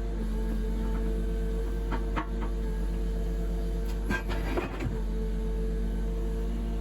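Debris grapple truck ("cherry picker") working, played back at double speed: a steady engine hum, with a few knocks and clatters about two seconds in and again around four to five seconds in as debris is grabbed.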